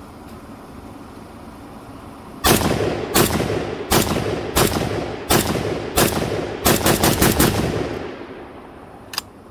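Hungarian AMD-65 semi-automatic rifle in 7.62×39mm firing about a dozen rounds: six single shots a little under a second apart, then a rapid string of about five, each shot trailing a short echo. A single light click near the end.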